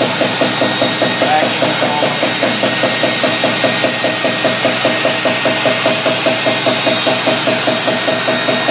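Wave table running with a fast, even mechanical knocking from its drive, over a faint steady motor whine.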